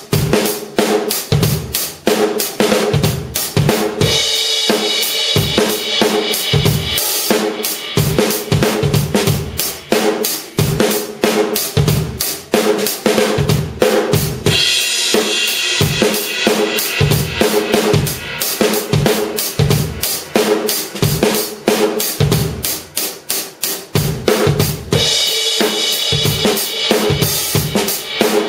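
C&C Custom drum kit with TRX cymbals played in a steady groove: bass drum and snare strokes under hi-hat. A crash cymbal rings out about four seconds in, again about midway, and again near the end.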